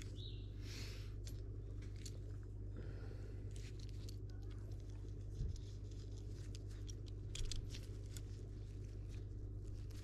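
Faint clicks and light handling knocks from a barb insertion tool being fitted onto a hydraulic brake hose, with two slightly louder knocks about five and a half and seven and a half seconds in, over a steady low background hum.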